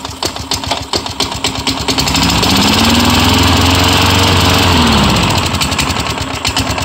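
Craftsman lawn mower's Tecumseh 4.5 hp single-cylinder engine catching on a pull after priming. It sputters unevenly for about two seconds, picks up speed and runs steadily, then slows and dies away near the end. It is running only on the primer charge, which the owner puts down to the engine being old and needing repeated priming to stay running.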